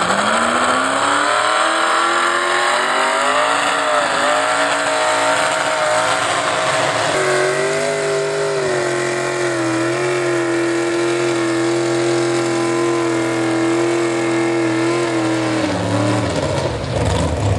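Modified pulling tractor's engine at full throttle dragging a weight-transfer sled: the revs climb over the first few seconds, hold high and steady through the pull, then drop off a couple of seconds before the end as the pull finishes.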